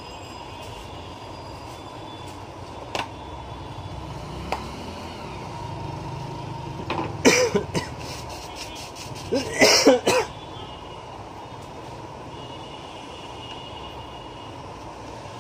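A person coughing: a short cough about seven seconds in, then a longer run of coughs around ten seconds in. Under it is a steady background hum with a couple of faint clicks.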